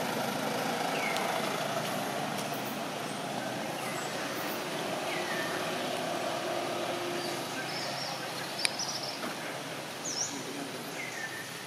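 A vehicle engine runs steadily in the background. Over it come scattered short, falling animal chirps, and a single sharp click sounds about three quarters of the way through.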